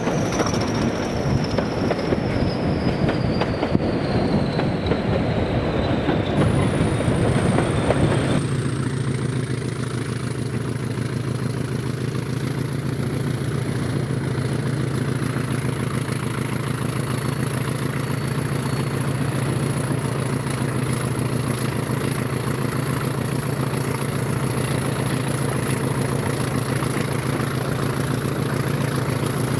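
Diesel locomotive and train on the move, with rail noise and a slowly falling high whine. About eight seconds in this cuts abruptly to a diesel locomotive engine running steadily with a low even note and a high whine.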